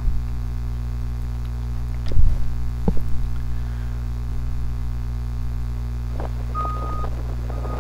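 Steady low hum of heavy machinery at a wood-chip truck dumper, with two clunks about two and three seconds in. Near the end a high warning beeper starts, about half a second long and repeating roughly once a second.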